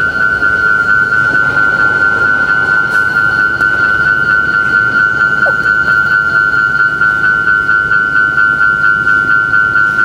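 Japanese level-crossing warning bell ringing steadily in rapid, evenly repeated dings, the alarm that sounds while a train approaches or passes the crossing.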